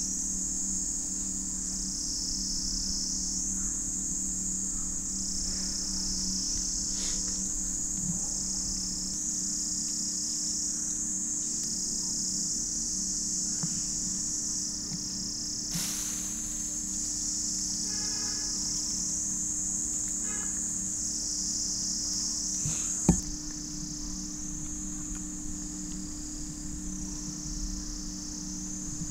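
Loud insect chorus: a steady, high-pitched buzz that dips briefly every second or two, over a low steady hum, with one sharp click late on.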